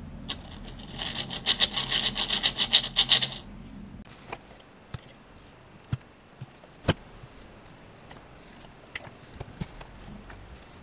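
Rusty ball bearing in an electric scooter hub motor turned by hand, giving a gritty, rattling whir with a high ring for about three seconds; the roughness comes from the rust in the bearing. After that come scattered sharp clicks of pliers working on the stator's wires.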